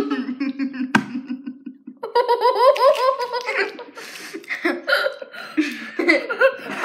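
Two girls laughing while chewing gummy candy: a low, muffled, closed-mouth laugh at first, with a sharp click about a second in, then open, rhythmic giggling from about two seconds in.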